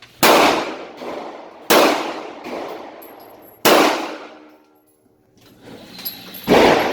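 Four single shots from a Core 15 Scout AR-15 rifle in 5.56 at irregular intervals, each a sharp crack with a long decaying tail; the last comes after a longer pause, near the end.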